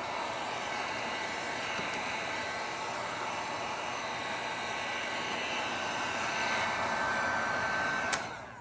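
Handheld electric heat gun blowing steadily with a faint high whine as it post-heats vinyl wrap film on grille trim. It stops with a click near the end and the blowing dies away.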